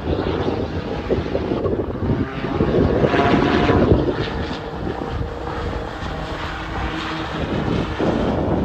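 Hydrogen-combustion engine of a Corolla race car running on a circuit, heard from trackside. The engine note swells to its loudest about three to four seconds in as the car comes past, then eases off.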